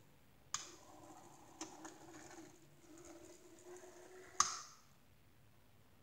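HOn30 model locomotive's small electric motor whirring steadily as it runs along the track, with a few light ticks. A sharp click about half a second in as it starts, and the loudest click near the end as the whir stops.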